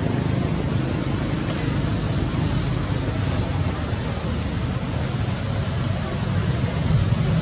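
Steady low rumbling background noise with no distinct events, of the kind given by distant vehicle traffic.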